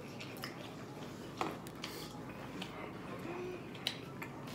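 Faint eating and handling noises over quiet room tone: a few small clicks and soft squishy sounds, with two sharper clicks, one about a second and a half in and one near the end.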